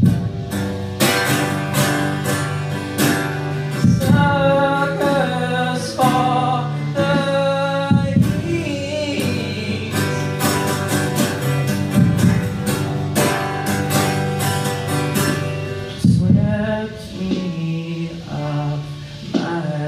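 Live acoustic song: a man singing while strumming an acoustic guitar, over a played-back drum track.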